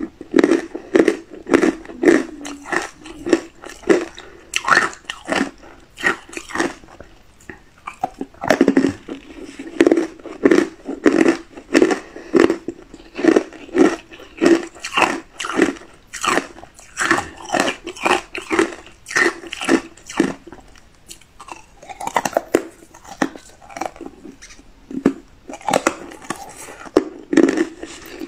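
Hard ice blocks dusted with matcha powder being bitten and chewed: a steady run of sharp crunches, about two a second, with a couple of brief pauses.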